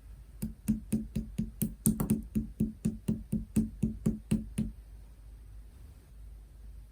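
A quick run of about seventeen hollow taps, roughly four a second, with fingertips or nails on a plastic slime container, each tap with a short low ring; the tapping stops about two-thirds of the way through.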